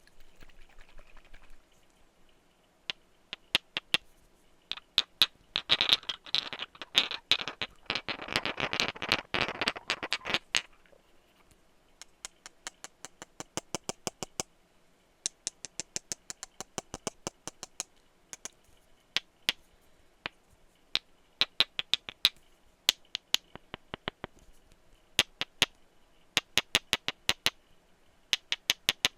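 Glass perfume bottles tapped in quick, irregular runs of sharp clicks. Around the middle there is a denser stretch of rapid tapping and scratching on the glass, the loudest part.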